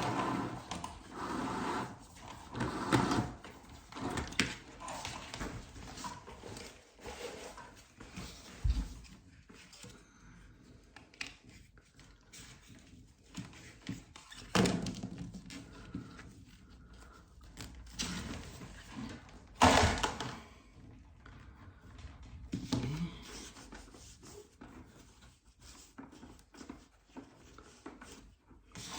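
Electrical wire being pulled by hand out of an old plastic conduit pipe: irregular rustling and scraping with scattered knocks and thunks, the loudest about 15 and 20 seconds in.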